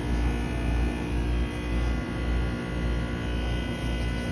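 Heat pump compressor running through a defrost cycle: a steady mechanical hum with several held tones over a low wavering drone.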